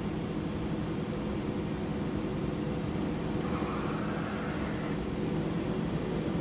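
1999 Mori Seiki SL-150S CNC lathe's main spindle running steadily at 2000 RPM, a constant machine hum. A faint hiss joins briefly about three and a half seconds in.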